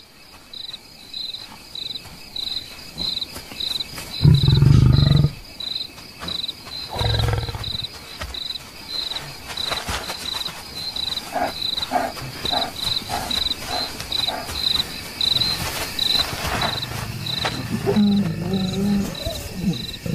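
A lion growls once loudly for about a second, then gives a shorter growl a couple of seconds later, over the steady, evenly pulsed chirping of insects.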